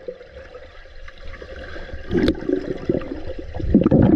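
Pool water heard underwater, muffled, through a submerged camera: bubbling and churning water, quieter at first and growing louder and busier about halfway through as a swimmer moves right up against the camera.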